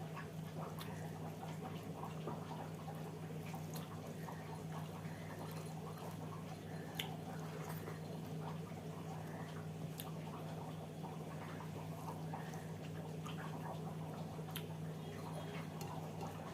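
A person eating a meal of rice and dal: soft wet chewing and mouth smacking with scattered small clicks, over a steady low hum.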